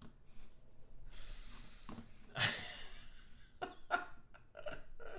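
A person breathing close to the microphone: a soft breath in, then a louder exhale about two and a half seconds in, followed by a few light clicks.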